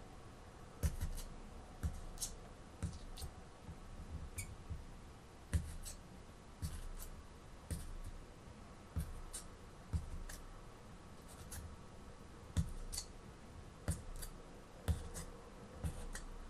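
Thin pointed poker punching holes in aluminium foil stretched over a hookah bowl: sharp little clicks at an uneven pace, about one or two a second. The foil is being perforated as densely as possible before the coals go on.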